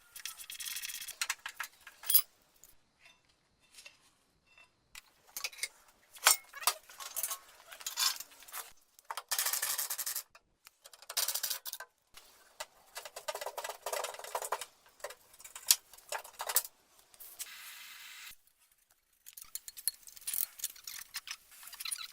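Metal tools and metal parts being handled: irregular bursts of clinking, scraping and rattling with sharp clicks between them and short pauses.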